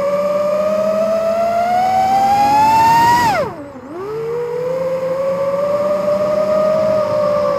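FPV racing quadcopter's brushless motors and propellers whining. The pitch climbs steadily, then drops sharply and the sound dips about three and a half seconds in as the throttle is cut. It then rises back to a steady whine as the throttle comes back in.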